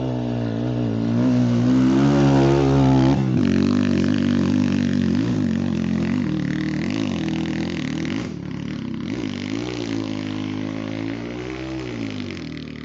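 Trail motorcycle engine revving. The pitch climbs over the first few seconds, then rises and falls with the throttle and eases off toward the end.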